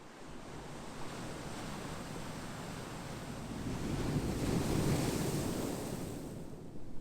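Ocean surf: a wave swells in a rising wash of noise, breaks at its loudest about five seconds in, then recedes.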